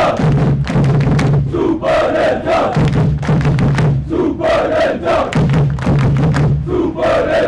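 Large crowd of football supporters chanting in unison, a phrase repeating about every two and a half seconds, over regular beats.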